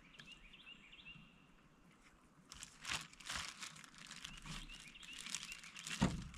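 Rustling and crinkling from hands handling something in the boat, with a thump near the end. A bird chirps in short repeated notes in the background.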